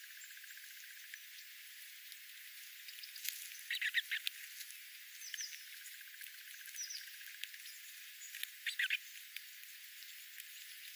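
Wild songbirds chirping: a few short clusters of high chirps about four seconds in and again near nine seconds, with a couple of brief sliding notes between, over a steady thin hiss.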